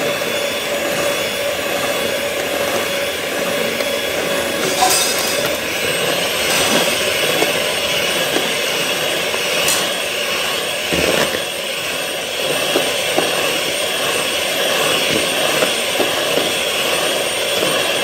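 Electric hand mixer running steadily, its twin beaters whisking a thin egg-and-sugar batter in a plastic bowl, kept running while oil is added, with a few light knocks along the way.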